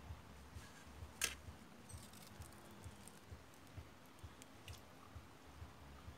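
Small clicks and taps of fishing tackle being handled, with one sharp click about a second in. Underneath is a faint low pulsing, about two beats a second.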